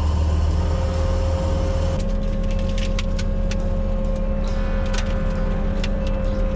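Bobcat T870 compact track loader's diesel engine running steadily under the high-flow hydraulics, with a constant whine; its note shifts about two seconds in. Several sharp cracks and snaps cut in over the engine in the second half.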